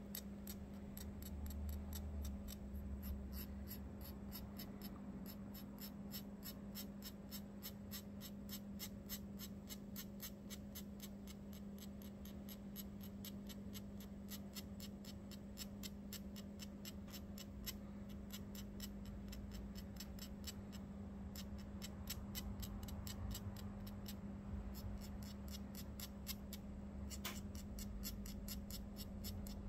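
Faint, quick light tapping, roughly three taps a second with a few short pauses: a sifter being tapped to sprinkle glass powder through a stencil. A steady low hum runs underneath.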